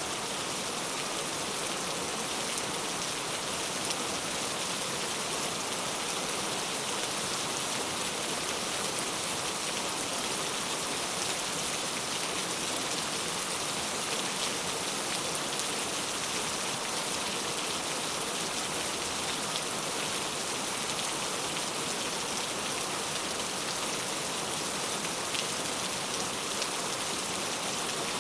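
Steady rain: an even hiss, strongest in the high end, with a few faint drop ticks here and there.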